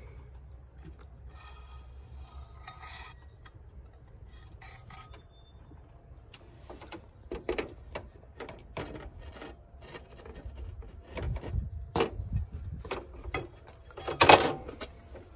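Scrapes and knocks of a steel pipe used as a cheater bar on a wrench, shifting against the wrench and engine parts. Quiet at first, then a string of short scrapes from about halfway, with the loudest near the end.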